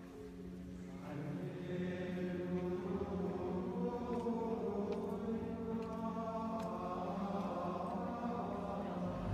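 Choral chant: voices holding long, slowly changing notes over a steady low drone. It swells about a second in.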